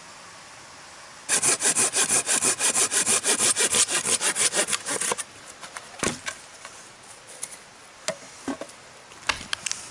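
Hand saw cutting through wood with about four seconds of quick, even strokes, followed by scattered sharp clicks and snaps.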